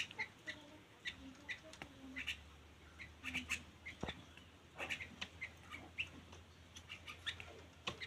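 A tame sooty-headed bulbul making short, scattered chirps as it feeds, several a second, with a few light taps.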